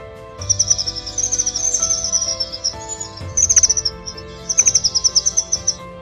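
Hummingbird song: rapid strings of high, thin chirps in three runs, over a soft music bed.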